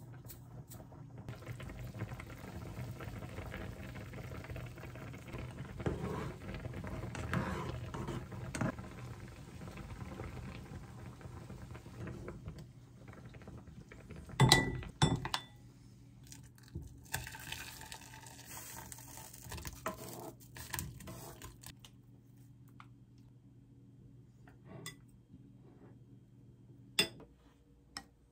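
Rice-cake soup with dumplings simmering in a pan, with a low steady hum under it. About halfway through, a cluster of loud knocks and scrapes of a wooden spoon against the pan and a ceramic bowl as the dumplings and broth are transferred. Near the end come a few single light knocks of the spoon in the bowl.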